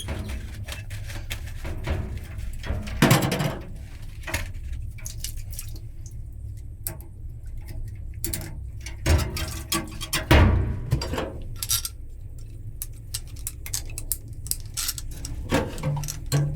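Scattered knocks and clatter of tools and pipe being handled during a water-pipe repair, the loudest about three seconds in and again around ten seconds, over a steady low hum.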